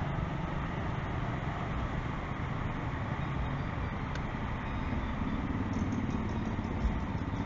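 Street traffic at an intersection: a car and a motorcycle passing, with a steady low rumble of engines and tyres.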